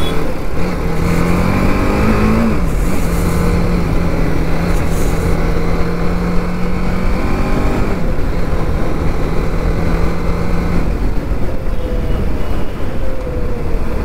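TVS Apache RR 310's single-cylinder engine pulling the bike up through the gears, its note climbing and dropping at two upshifts. About three-quarters of the way in the throttle closes and the engine note fades as the bike slows, with steady wind and road noise throughout.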